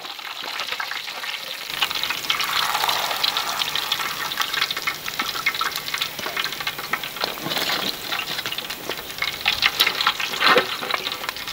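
Chicken pieces deep-frying in hot oil: a steady sizzle thick with fine crackles and pops, getting louder about two seconds in.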